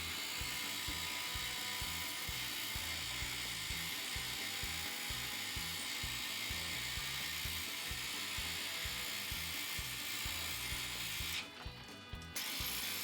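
High-pressure washer spraying water onto an air conditioner's heat-exchanger fins, a steady hiss that stops for about a second near the end. Background music plays underneath.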